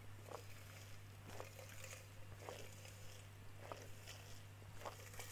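Soda drunk through a straw, with faint swallowing gulps about once a second over a steady low hum.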